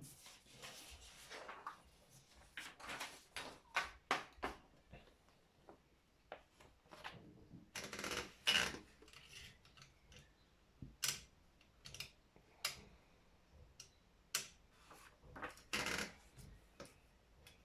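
Brother 4612 electric typewriter in use: irregular sharp key strikes, with a few longer noisy stretches of about a second in between.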